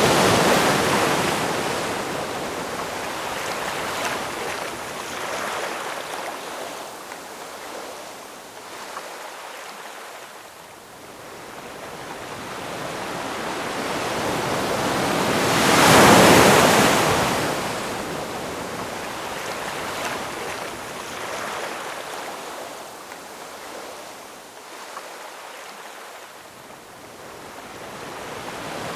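Ocean waves breaking on a shore: one crashes at the start and a louder one about halfway through, each fading into a long hiss of receding surf, with the next wave building near the end.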